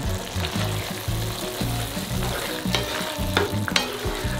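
Thick tomato-and-meat ragù sauce bubbling and sizzling in a pan as it reduces, with a spatula stirring through it and a few sharp clicks against the pan in the second half.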